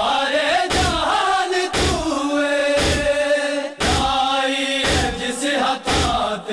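Male voices chanting a Punjabi noha (Shia lament) in long held lines. Over it, a crowd of mourners beats their chests in unison (matam), giving a heavy thump about once a second.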